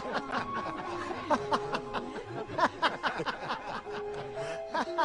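A crowd of onlookers laughing and snickering in short, choppy bursts, over music with long held notes.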